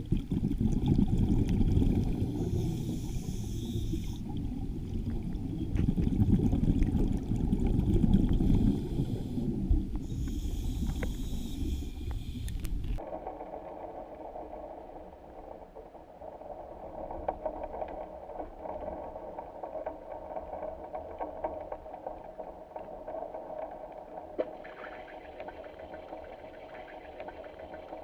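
Water noise picked up by a camera microphone: a loud low rumble of moving water, cutting abruptly about halfway through to a quieter steady hiss with faint crackles.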